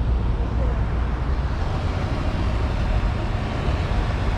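Steady road and traffic noise from a car driving through city traffic: a low rumble under an even hiss.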